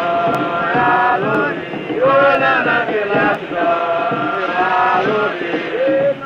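A chorus of men's voices chanting a work song in long held notes, phrase after phrase, as fishermen haul together on the beach.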